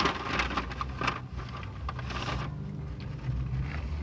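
Crackly rustling and clicking of a paper napkin being handled while eating, busiest in the first second or so, with a brief hissy crinkle about two seconds in. A low steady hum runs underneath.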